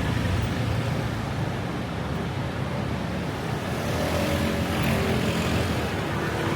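Street traffic: a steady rumble of motor vehicles running past.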